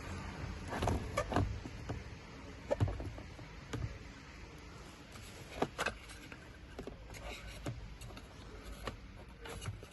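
Scattered plastic clicks and knocks of car interior trim and parts being handled and pulled apart by hand, over a low steady hum.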